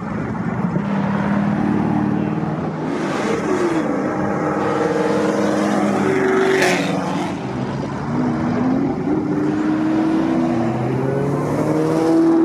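High-performance car engines revving and accelerating away, the pitch climbing and dropping several times through throttle blips and gear changes. A short, sharp burst of noise cuts through near the middle.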